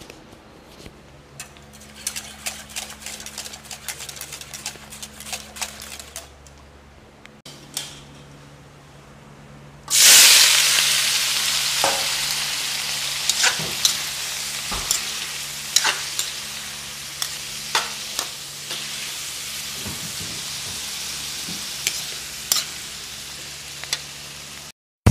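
Light taps and clicks over a low hum, then about ten seconds in a sudden loud sizzle as cauliflower, broccoli and carrots fry in a hot wok. The frying hiss goes on steadily, with clinks and scrapes from a metal spatula as the vegetables are stirred.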